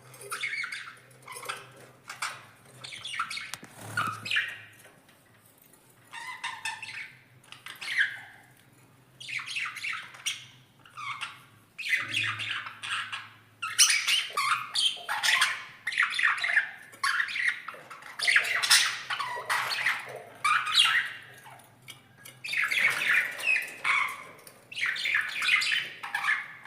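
Pet cage birds chirping and squawking in quick runs of short, high calls, with brief pauses between runs; the calling gets busier about halfway through.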